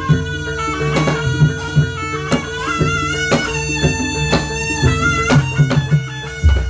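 Traditional Javanese barongan accompaniment: a reedy wind instrument plays a stepping melody over regular drum strokes and a steady held tone.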